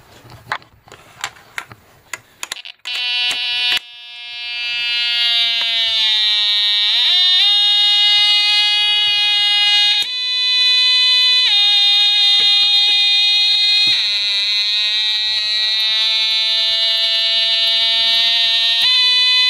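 A few sharp clicks, then a Snap Circuits buzzer circuit sounding a loud electronic buzz whose pitch shifts as the light on its photoresistor changes: it slides down over a few seconds, jumps up, drops, slides down again and jumps up near the end.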